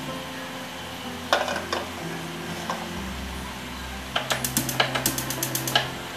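Gas hob igniter clicking rapidly, about a dozen sharp clicks in a second and a half near the end, as the burner knob is turned to light the flame under the wok. A couple of sharp knocks about a second in, over soft background music.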